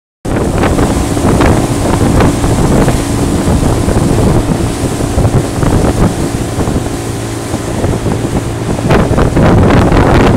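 Speedboat running at speed: a steady low engine hum under heavy wind buffeting on the microphone and rushing water.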